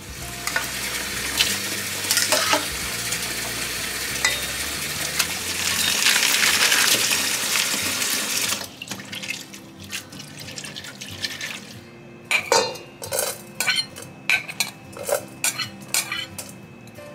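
Tap water pouring into a stainless-steel bowl in a sink, a steady rush that stops sharply about eight and a half seconds in. After it, a metal spoon clinks and scrapes repeatedly against a ceramic plate and a pot.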